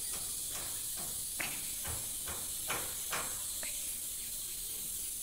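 Steady background hiss of the recording, with about six faint, short clicks in the first four seconds.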